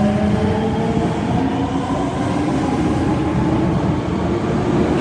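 Osaka Metro Tanimachi Line subway train running, with a steady rail rumble and a motor whine slowly rising in pitch as it gathers speed.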